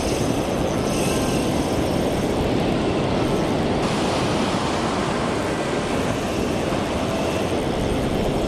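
Ocean surf washing up the beach and foaming around the feet: a steady, loud rushing noise.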